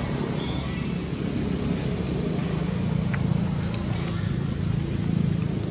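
Steady low outdoor background rumble, with a few faint, very short high sounds in the second half.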